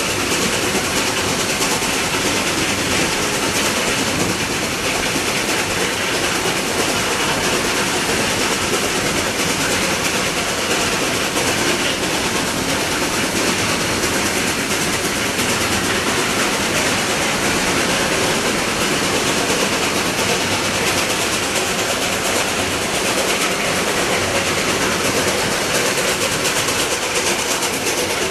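Shay geared steam locomotives double-heading a long, heavy train uphill and passing close: a steady, dense rush of exhaust and running gear, with the cars' wheels on the rails.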